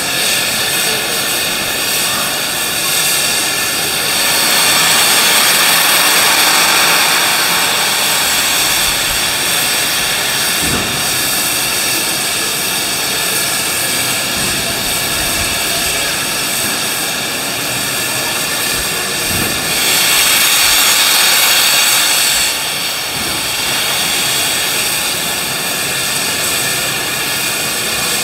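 Steam locomotive 3801, a C38 class Pacific, standing in steam: a steady steam hiss with a whine of steady high tones. It swells louder twice, about four seconds in and again about twenty seconds in.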